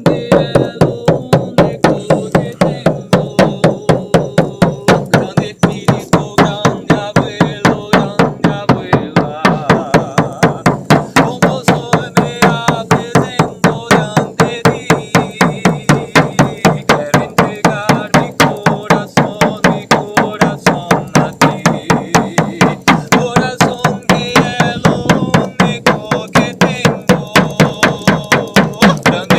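A hand drum beaten in a steady, even rhythm, with a voice singing a wordless chant over it.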